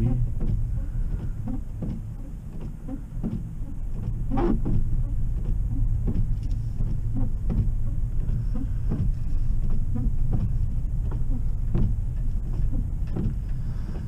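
A car driving slowly on snow tires over a snow-covered road, heard from inside the cabin: a steady low rumble of tyres and engine, with a few faint knocks.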